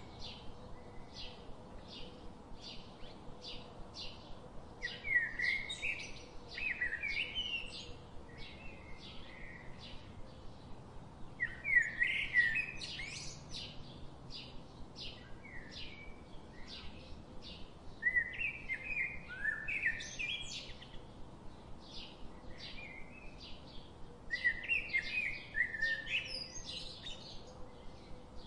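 Birds chirping: short repeated chirps about two or three a second, with a longer twittering phrase every six or seven seconds.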